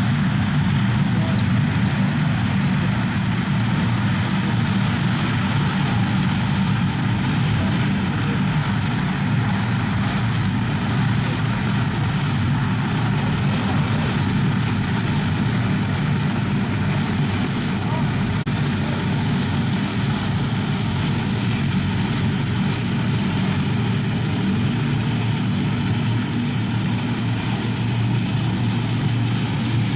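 Four Allison T56 turboprop engines of a Lockheed C-130H Hercules running at taxi power: a steady, loud propeller drone with a constant high turbine whine above it.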